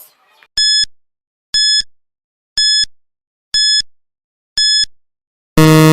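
Quiz countdown timer sound effect: five short high-pitched beeps, one a second, then a louder, lower buzzer tone near the end marking that time is up.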